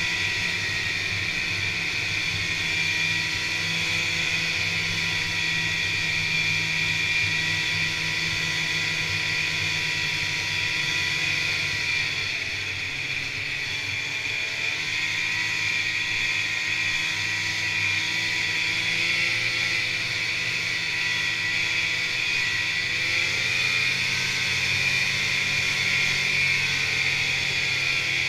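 Snowmobile engine running steadily at trail-riding speed, heard from on board the sled. The engine eases off briefly about halfway, then picks back up.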